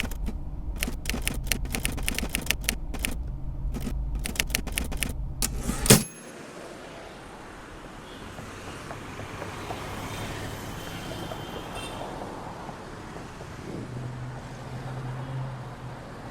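Typewriter keys clacking in an irregular run for about six seconds, ending in one loud strike. It then gives way abruptly to steady street traffic noise.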